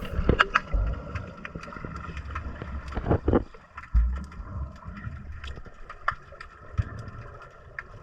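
Scattered knocks and clicks aboard a kayak at sea, with a few low thumps of wind on the microphone.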